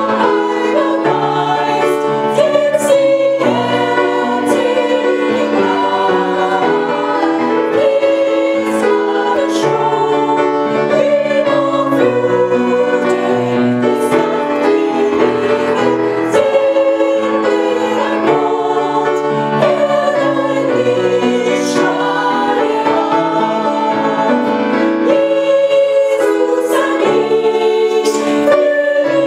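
A small ensemble of women's voices singing a Christian worship song together, with sustained sung notes, over a quieter instrumental accompaniment.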